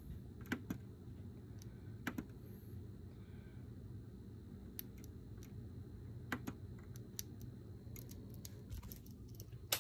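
Faint scattered clicks and small pops over a steady low hum from a powered-up MicroTech III HVAC controller, coming faster near the end. The sizzling and popping inside is the sign of an internal short on the board.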